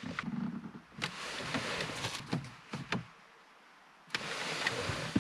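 Hand-work noise at a car dashboard: a screwdriver and hands handling the plastic radio unit and its surround, with several sharp plastic clicks between about one and three seconds in, a brief lull, then more handling noise.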